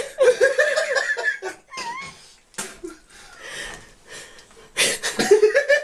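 A person laughing in high-pitched, choppy giggles, in a burst at the start and again near the end.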